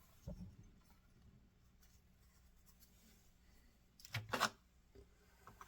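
Mostly quiet room tone, with a soft low thump near the start and two sharp clicks about four seconds in, from HO-scale model railroad cars being handled and set down.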